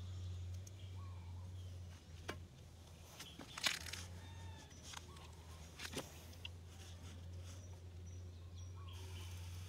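A few light knocks and clicks from a kitchen knife and fruit being handled on a banana leaf, the sharpest about three and a half seconds in as the knife is laid down, over a steady low hum and faint bird chirps.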